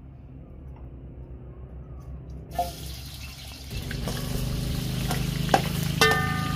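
Broth sloshing as a long metal ladle stirs it in a large aluminium pot over a wood fire, with scattered small clicks, louder from about four seconds in. A brief ring sounds near the end.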